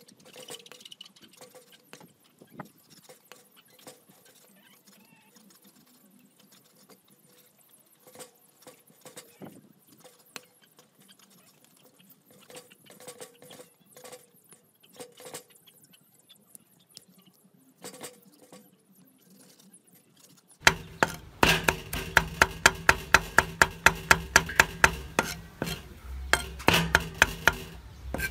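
A cleaver slicing raw beef on a wooden chopping block gives soft, scattered cuts and taps. About two-thirds of the way in, loud, rapid chopping on the block begins: a cleaver mincing garlic at about three hard knocks a second.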